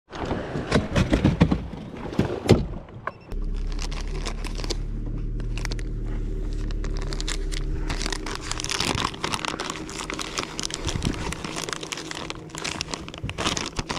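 Clattering and knocking of gear being handled, then a boat motor starts a steady low hum about three seconds in, with dense crackling and rustling over it through the second half.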